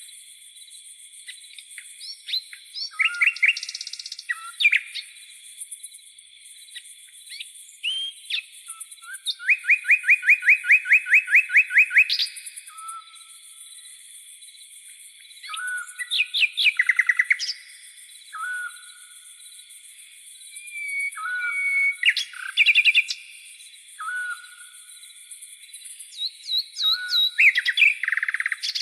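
Night birds calling over a continuous chorus of crickets and cicadas. Varied chirps and whistles, a fast trill of about eight notes a second near ten seconds in, and short low whistles repeated every couple of seconds in the second half.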